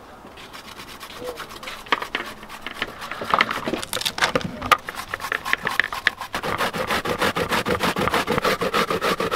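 A courgette being rubbed quickly up and down a flat stainless steel hand grater over a plastic bowl: a run of short, fast grating strokes that gets louder and more regular about six seconds in.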